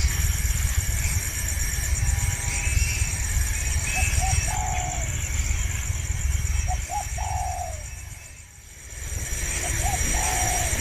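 A bird giving cooing calls three times, each a couple of quick short notes followed by a longer, slightly falling note. A steady high-pitched buzzing and a low rumble run underneath.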